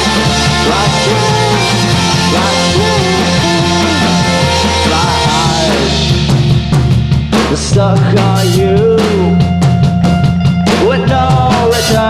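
Rock band playing live: electric guitars, bass and drum kit. About halfway through, the drum hits become sharper and more prominent.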